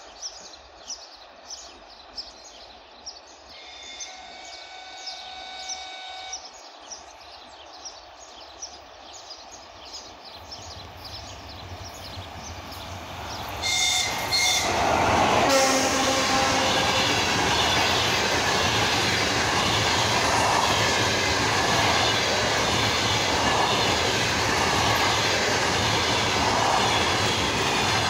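Birds chirping, and a distant train horn sounding for about two and a half seconds as a ChS4 electric locomotive approaches. About 14 s in, the locomotive sweeps past at speed with a brief horn note. The long passenger train follows with a loud, steady rumble and the rhythmic clatter of coach wheels over rail joints, easing off near the end.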